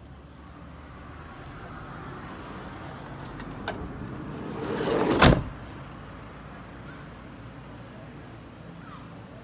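Volkswagen Transporter's sliding side door rolling along its track and slamming shut with one loud bang about five seconds in, after a click a moment earlier.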